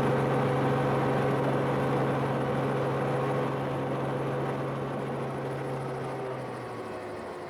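Helicopter engine and rotor noise, a steady drone with a low hum, fading out gradually.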